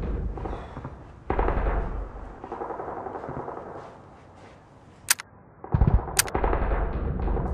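Gunfire: stretches of rapid shots with a low rumble that die away about four seconds in, then single sharp cracks and a heavy low boom near the end.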